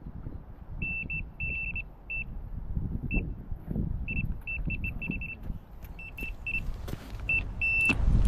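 Electronic bite alarm on a carp rod beeping in quick irregular bursts as line is pulled off by a taking fish, a run that the angler takes for a carp. The beeps run together into a steady tone near the end, followed by a loud thump as the rod is lifted.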